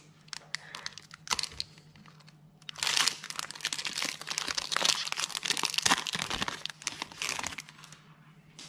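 Foil wrapper of a Pokémon card booster pack crinkling and crackling as it is opened and the cards are slid out. Light scattered crinkles at first, then a dense spell of crinkling from about three seconds in until nearly the end.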